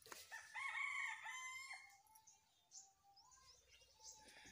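A rooster crowing once, heard faintly: one long call about a second and a half long, starting just after the beginning.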